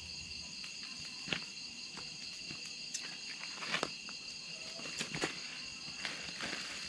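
Steady night chorus of crickets and other insects, a constant high-pitched trilling, with a few sharp clicks and knocks, the loudest about a second in and again near the middle, from things being handled on a camp table.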